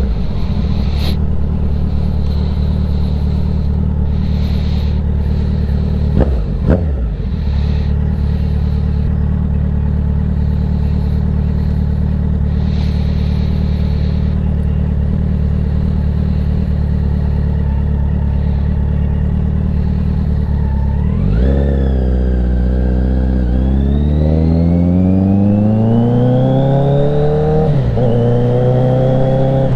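Kawasaki Z900 inline-four motorcycle engine idling steadily, with two quick throttle blips about six and seven seconds in. Near the end it pulls away under acceleration, revs rising and dropping back twice as it shifts up through the gears.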